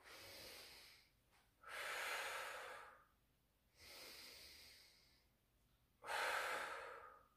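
A woman breathing audibly through a set of dumbbell lateral raises: four breaths, quieter inhales alternating with louder exhales timed to lifting the weights.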